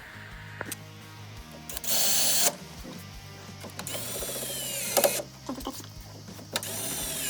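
Siegenia metal window fittings (espagnolette with scissor-stay drive) being slid into the groove of a PVC sash and seated: a scraping burst about two seconds in, a longer metallic scrape with ringing around four to five seconds, and sharp clicks. Background music plays under it.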